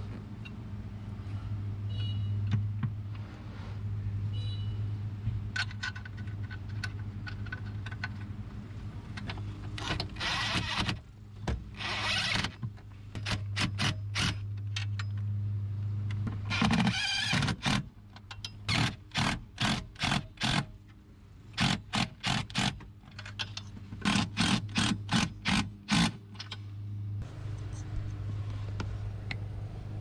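Hand ratchet clicking in runs of quick strokes as the steering column's mounting bolts are run in, over a steady low hum.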